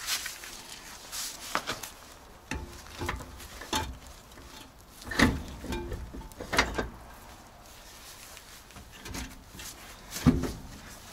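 Heavy metal clunks and scrapes as a KamAZ wheel hub and brake drum, its bearings freshly greased, is lifted and slid onto the axle spindle, with the loudest knocks about five seconds in, at six and a half seconds and near the end.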